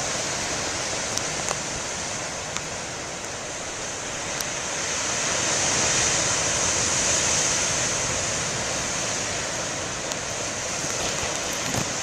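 Ocean surf breaking on a beach: a steady wash of waves that swells about halfway through as a bigger wave comes in and then eases off.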